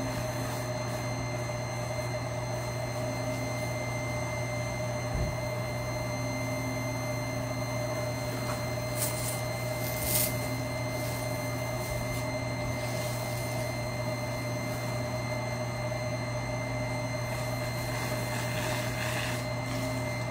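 A steady machine hum holding fixed low and middle tones, with a dull knock about five seconds in and two brief hisses around nine and ten seconds.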